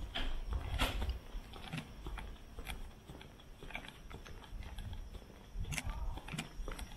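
Footsteps on hard pavement: irregular sharp clicking steps, roughly one a second, over a low street rumble.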